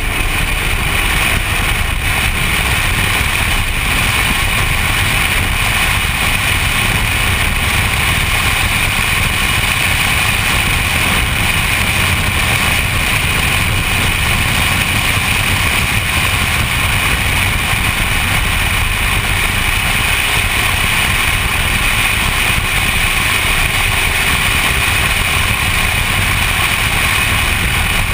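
BMW car driven at speed around a race track, heard on a camera mounted outside the driver's door: a loud, steady rush of engine, tyre and wind noise.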